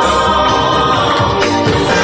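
Runway show soundtrack: music with singing voices over a beat.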